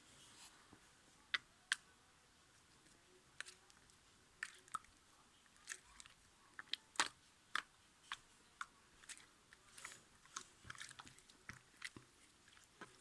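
Homemade slime with soothing gel mixed in, squished and stretched by hand, giving short, sharp, irregular clicks and pops.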